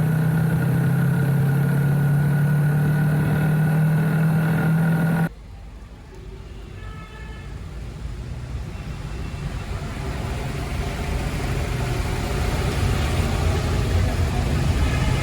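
A motor vehicle engine running with a steady hum, cut off abruptly about five seconds in. After it comes quieter road traffic noise that grows steadily louder.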